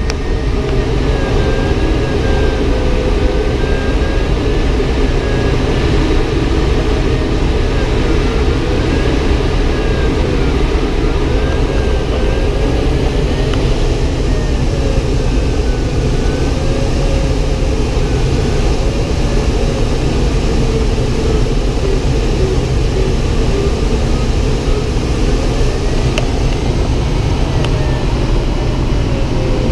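Steady rush of air over a glider's canopy in flight, with a thin tone that slowly wavers up and down every few seconds.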